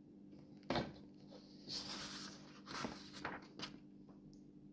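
Faint handling noises: a sharp click a little under a second in, then a soft rustle and a few light ticks, over a faint steady hum.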